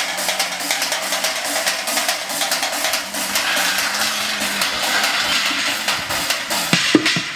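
Street drumming on recycled objects (metal pans, trays, sheets and plastic buckets) struck with sticks: a dense run of fast metallic clattering without the bass beat. Heavy, regular low thumps come back near the end, about three a second.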